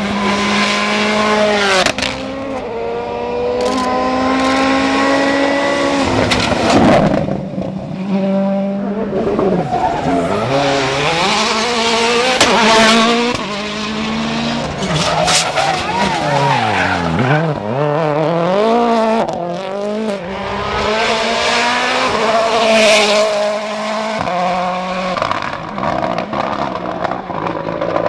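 Turbocharged four-cylinder World Rally Cars driven flat out on tarmac, several cars one after another. The engines climb through the gears with quick upshifts, then rise and fall in pitch through the corners, with a few sharp cracks.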